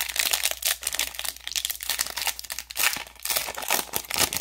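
Plastic wrapper of a trading-card pack crinkling and tearing as it is ripped open: a dense, irregular run of sharp crackles.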